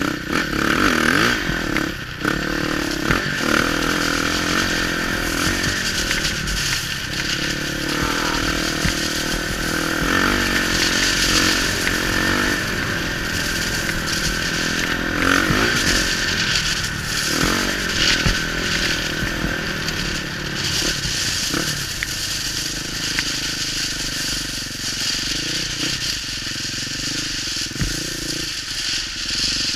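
Enduro motorcycle engine running under way, its revs rising and falling again and again as it rides over loose beach pebbles.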